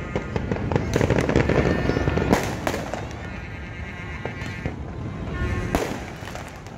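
Fireworks going off in a rapid series of sharp bangs, densest in the first two and a half seconds, with another loud bang near the end.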